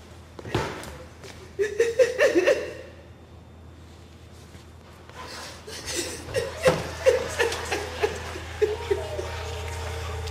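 A woman's wordless vocal sounds come in two spells of short, stuttering bursts, after a sharp knock just at the start. A low steady hum grows in from about halfway.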